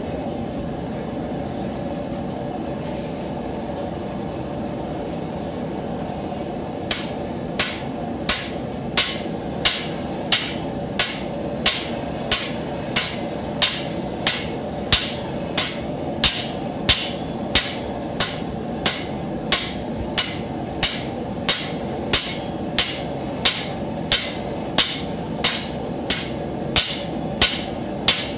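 A gas forge burner runs steadily. About seven seconds in, a hand hammer starts striking red-hot plow share steel on an anvil in a steady rhythm of about three blows every two seconds, each blow with a bright ring.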